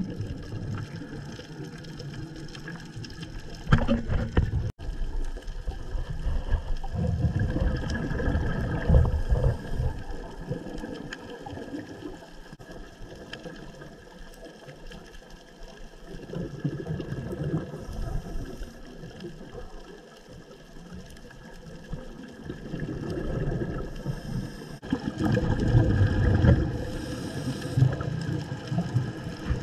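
Underwater sound picked up by a dive camera in its housing: muffled, rumbling water noise that swells and fades in surges, over a faint steady hum.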